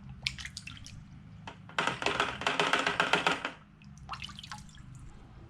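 Fresh water splashing and dripping on an iPhone clogged with sand as it is rinsed. Scattered drips and taps lead into a loud rush of running water lasting about two seconds near the middle, then a few more drips.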